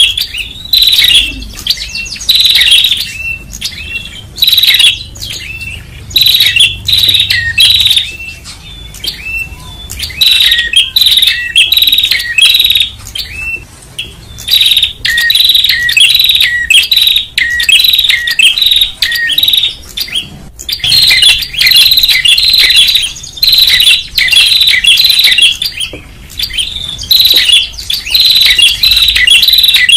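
Prenjak warbler calling noisily: rapid, high chirping notes packed into phrases of a second or two, repeated with short breaks, a loud agitated chatter of the kind used as a bird-trapping lure call.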